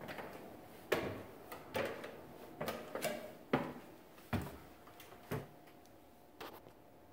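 Footsteps on wooden steps: a run of uneven thuds about one every half second to a second, the last ones fainter.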